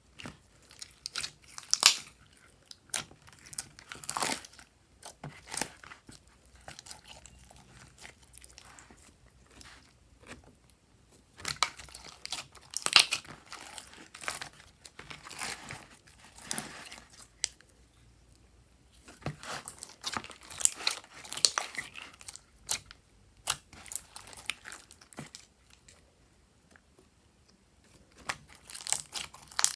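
Close-up handling of slime-making materials: irregular clusters of sharp clicks and crackles, with short quiet pauses between them.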